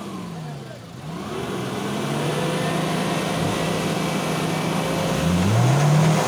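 Toyota Land Cruiser 80-series 4x4's engine revving under load as it climbs out of a muddy ditch. The revs dip and pick back up about a second in, hold steady, then rise to their loudest near the end.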